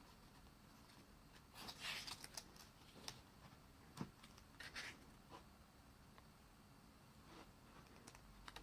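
Faint paper rustling as the pages of an album photobook are handled and turned: two short rustles, about two seconds in and again near five seconds, with a few light clicks between.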